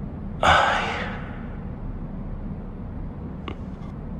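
A sudden burst of hissing noise, like a whoosh, that fades away within about a second, over a steady low hum; a faint click follows near the end.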